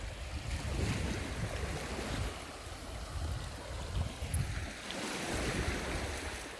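Sea waves washing onto a sandy beach, a steady rushing that swells slightly near the end, with wind rumbling on the microphone.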